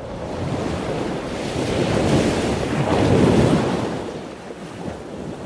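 Ocean surf: one wave swelling to a peak about three seconds in, then washing back and fading.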